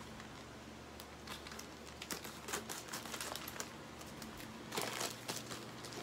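Plastic shipping pouch being crinkled and torn open by hand, in short irregular crackles and rustles that come in flurries about two seconds in and again near the end.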